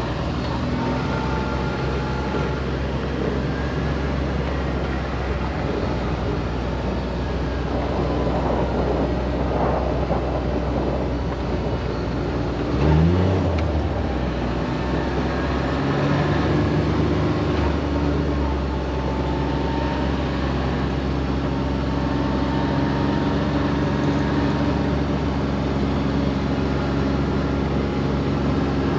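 Side-by-side UTV engine running steadily as the vehicle drives along a dirt track. The engine pitch climbs as it speeds up about 13 seconds in and again at the very end.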